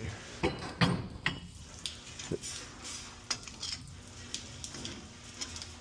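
Metal pipe fittings and hand tools being handled: irregular clanks, clinks and scrapes, with a few sharp knocks, the loudest about a second in.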